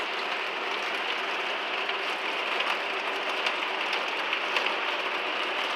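Thunderstorm rain falling steadily: a dense, even hiss with faint ticks of single drops.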